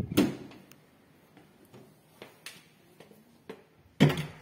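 Sharp knocks and clunks from an apartment front door being opened and handled. Two loud knocks come close together at the start and the loudest comes about four seconds in, with faint ticks between.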